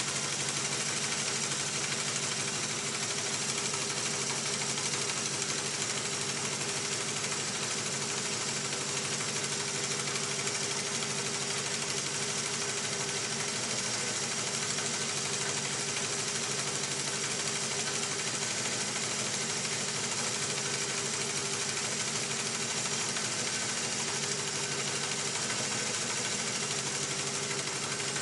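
Honda CB350F's air-cooled four-cylinder engine running steadily with a fast, even ticking rhythm: the abnormal noise that the owner suspects may come from an exhaust leak.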